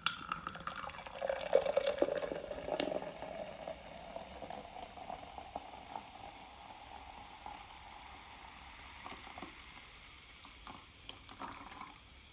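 Apple Fanta soda poured into a cup, fizzing, with the pitch of the pour rising slowly as the cup fills, then tapering off.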